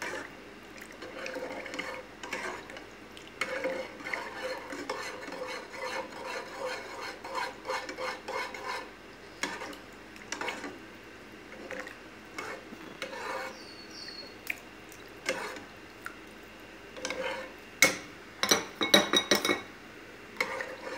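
A metal ladle stirring a thick creamy soup in a saucepan, scraping and clicking against the pan. A run of louder clinks and knocks comes near the end.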